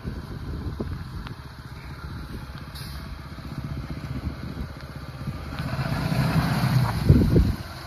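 Cummins turbo-diesel inline-six of a Ram heavy-duty pickup running at low speed as the truck drives through mud, a steady rumble that grows louder near the end as the truck passes close by.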